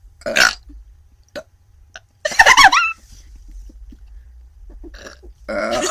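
Two burps: a short one about a third of a second in, then a louder, pitched belch about two seconds in.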